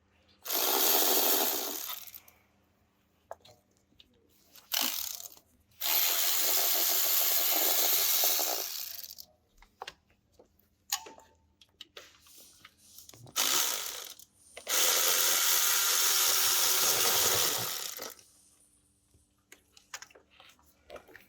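Impact wrench run in four bursts, two short and two of about three seconds, rattling as it undoes bolts, with small metal clinks of parts and tools in between.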